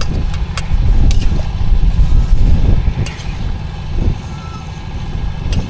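Strong wind buffeting the microphone in gusts, a loud low rumble, with a few sharp clicks scattered through it.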